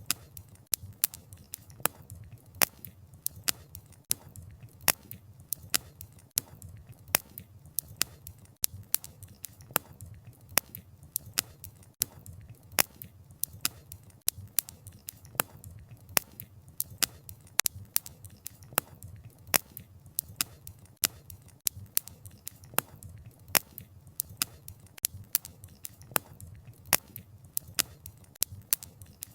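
Wood fire crackling: a steady run of sharp pops and snaps, several a second, over a low, soft rumble of the burning fire.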